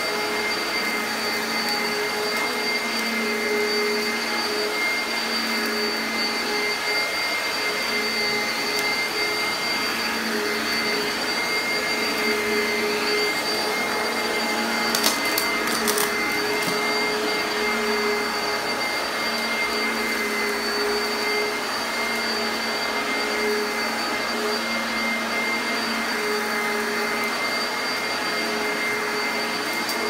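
Oreck Commercial XL upright vacuum cleaner running steadily as it is pushed over carpet, a constant motor whine with a held high tone. A few sharp clicks come about halfway through.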